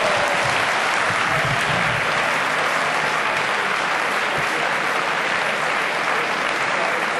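Audience applauding steadily in a large sports hall after a table tennis rally.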